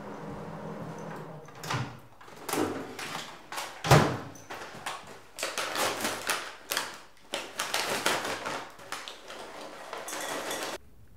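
A few clunks, the loudest about four seconds in, as the microwave door is opened, then the crinkling and tearing of a paper microwave-popcorn bag being pulled open. The sound cuts off suddenly near the end.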